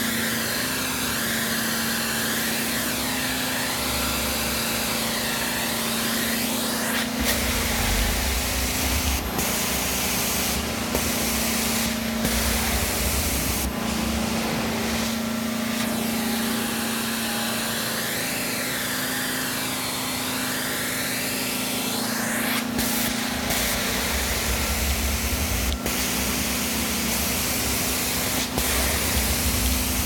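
Carpet steam-cleaning extraction wand spraying and sucking water from carpet as it is pushed and pulled. A loud steady suction hiss rides over the extraction machine's steady hum, and the hiss swells and sweeps in pitch with each stroke of the wand, with a few sharp clicks along the way.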